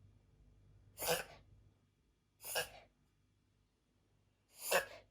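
Italian Greyhound puppy sneezing three times, each a short sharp burst, spaced about one and a half to two seconds apart.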